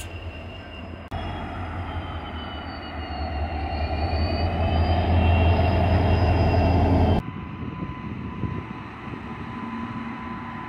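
Locomotive engines running, in three cuts. First a diesel locomotive's deep throb; after a cut about a second in, a General Motors diesel locomotive running with a deep steady rumble and a high whine that wavers in pitch, growing louder. About seven seconds in it cuts to a quieter passing electric locomotive with a steady hum.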